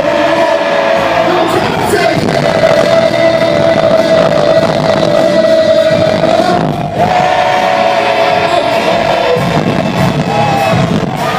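Live concert pop music in a large hall: a voice holds long, steady notes over the band, with a brief break about seven seconds in.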